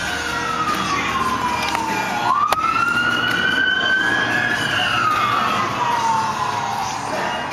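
An emergency-vehicle siren wailing in slow rise-and-fall sweeps. The pitch falls at first, swings back up a little over two seconds in, then falls again near the end.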